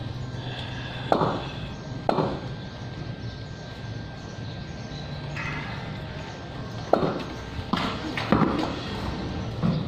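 Sharp knocks of a cricket ball and bat during a game of street cricket on stone paving: one about a second in, another at two seconds, then four more close together from about seven seconds on.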